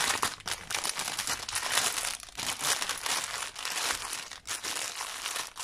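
Thin clear plastic bag crinkling and rustling in irregular bursts as small items are packed back into it by hand.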